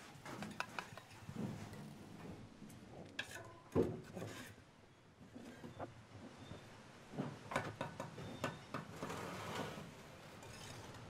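Irregular clinks and knocks of bricks and a trowel during bricklaying, with one louder knock about four seconds in and a busier run of strikes later on.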